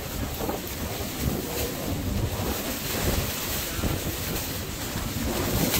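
Wind buffeting an open-air microphone: a continuous rumbling noise that rises and falls in gusts.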